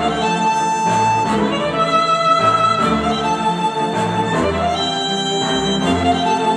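Dayton Audio B452 Air bookshelf speakers, driven by a Yamaha A-S301 integrated amplifier, playing an instrumental track. A slow melody of long held notes changes every second or two over steady bass notes.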